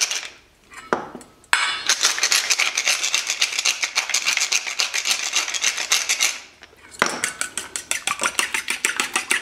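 Wooden pepper mill grinding pepper over a stainless steel bowl: a rapid crackling rasp for several seconds. Then, about seven seconds in, a fork starts beating eggs against the steel bowl with quick, even clinks, about five a second.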